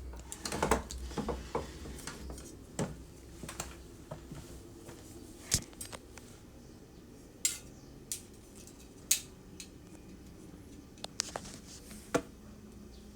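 Metal parts of a ball-bearing keyboard tray slide being handled: scattered, irregular clicks and clinks of metal on metal, some with a brief bright ring.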